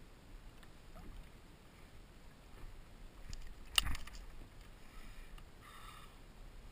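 Faint sea-water lapping and wind noise around a small kayak, with one sharp knock about four seconds in.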